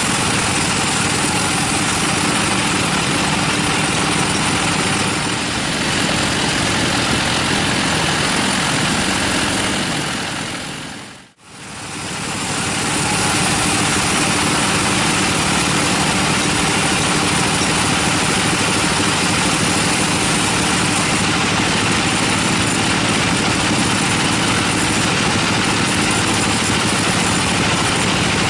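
Band sawmill running, its blade cutting lengthwise through a teak log: a loud, steady machine noise. About eleven seconds in the sound fades briefly away and comes straight back.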